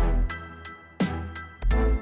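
Background music with a steady beat: sharp drum hits over a deep bass.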